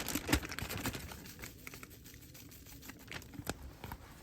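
Light taps and clicks from handling a seasoning shaker: a couple of sharper clicks in the first half second, then fainter scattered ticks.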